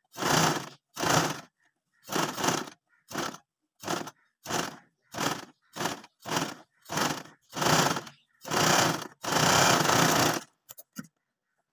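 Electric domestic sewing machine stitching fabric in short stop-start runs of a few stitches each, about fourteen runs with brief pauses between, the last one longer. A few faint clicks follow near the end.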